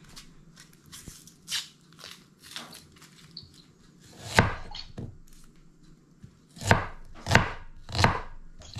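A kitchen knife working an onion on a wooden chopping board: faint scraping and rustling as the onion skin is pared off, then a loud knife strike on the board about halfway through and three more, less than a second apart, near the end.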